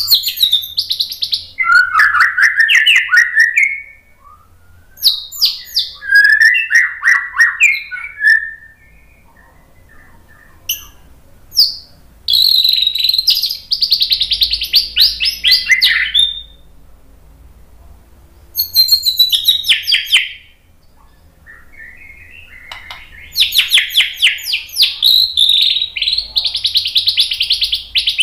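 White-rumped shama (murai batu) singing loudly in bursts of several seconds: varied whistled phrases and rapid runs of sweeping repeated notes, with short pauses between bouts.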